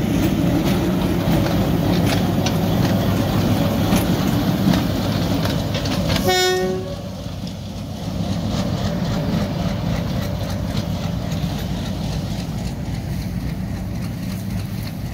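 Diesel locomotive passing close by, its engine rumbling and its wheels clicking over the rail joints. About six seconds in, a locomotive horn gives one short blast, after which the rumble goes on somewhat quieter.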